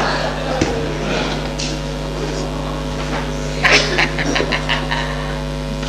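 A steady electrical hum with a low hiss, with a quick run of about half a dozen sharp knocks a little past halfway and a couple of single knocks near the start.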